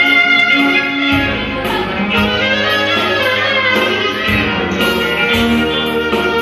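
Live folk music: a clarinet plays the melody in sliding, ornamented phrases over violin and Korg keyboard accompaniment, with the keyboard's bass notes changing every second or so.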